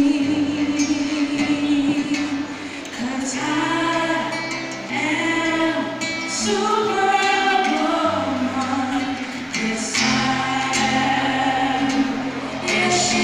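Girls singing a song together into microphones, their voices amplified over an instrumental accompaniment.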